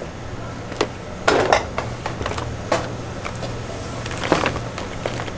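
A few scattered clinks and knocks of kitchen utensils and containers over a steady low hum.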